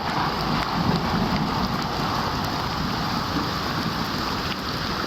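Steady rain noise with a low rumble of distant thunder underneath.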